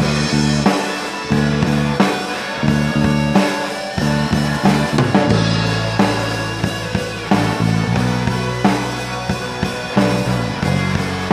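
Live band playing an instrumental intro: electric bass, electric guitar and drum kit, with a steady drum beat and no vocals yet.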